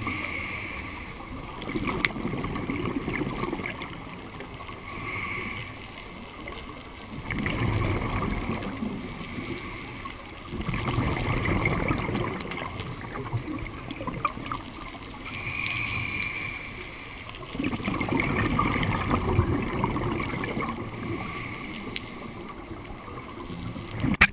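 Scuba diver breathing through a regulator underwater: a hissing inhale, then a rumbling rush of exhaled bubbles, repeated every few seconds for several breaths.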